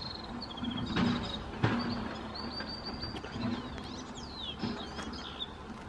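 Syrian serin singing: a fast, high-pitched twittering of rapid repeated notes and quick up-and-down slurs. Behind it is background noise from construction work, with a low hum and a loud knock about a second and a half in.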